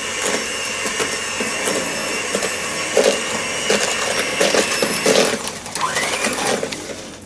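Electric mixer running steadily as it creams butter and sugar in a bowl, with faint clinks against the bowl; it dies away near the end.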